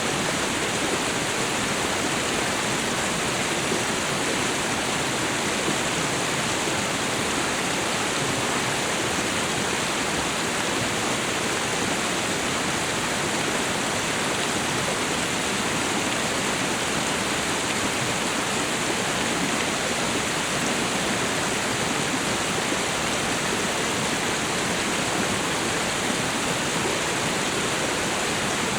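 Waterfall and river water rushing, a steady, even roar of falling and flowing water.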